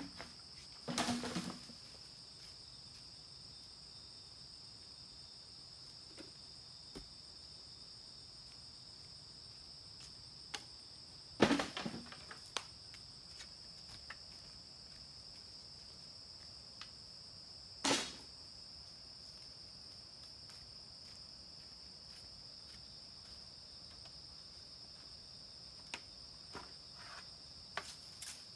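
Steady high-pitched drone of insects in the forest, with a few scattered knocks and rustles. The loudest come about a second in, around the middle and about two-thirds through, with small clicks near the end.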